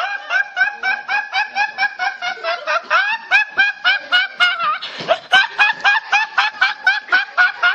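A young man laughing hard in a long, even run of short, high-pitched, rising whoops, about four a second, without pausing.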